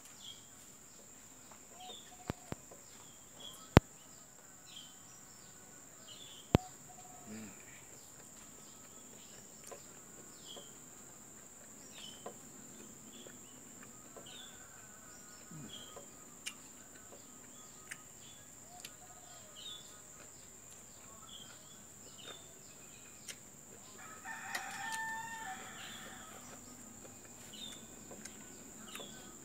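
A rooster crows once, about two seconds long, a few seconds before the end, over small birds chirping again and again throughout and a steady high whine. A few sharp clicks come in the first seconds.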